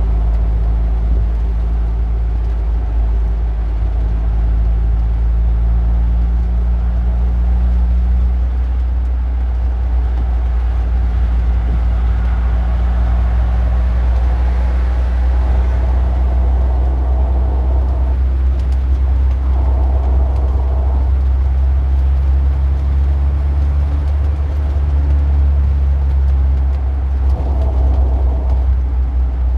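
Car engine running steadily, a deep even rumble that neither revs up nor dies away.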